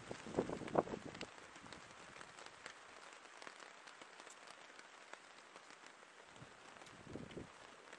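Close mouth sounds of a man eating: a slurping sip from a leaf spoon about a second in, and blowing on hot food near the end, over a faint steady patter of small ticks.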